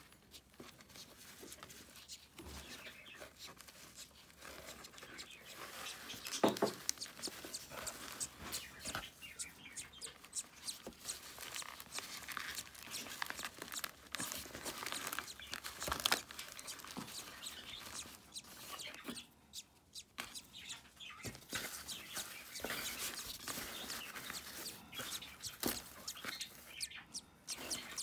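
Shredded-paper nest bedding rustling and crackling as hands sort budgie eggs in a nest box, with budgie chirps among the rustles.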